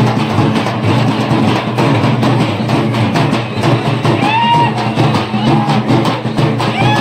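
Several halgi frame drums beaten with sticks in a fast, continuous rhythm. A few short rising-and-falling shouted calls rise over the drumming about four seconds in and again near the end.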